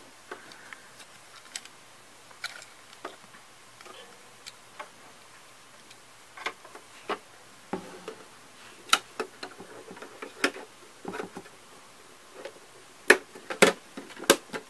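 Irregular sharp clicks and knocks of hard Playmobil plastic parts being handled and snapped into place as doors are fitted to a carry-case building, the loudest few near the end.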